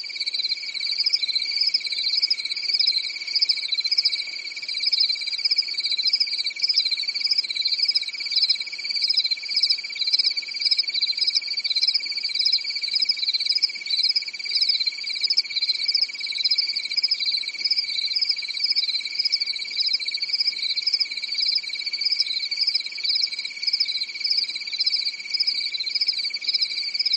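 Steady chorus of small calling animals: one unbroken high-pitched trill, with a second, higher call pulsing about twice a second over it.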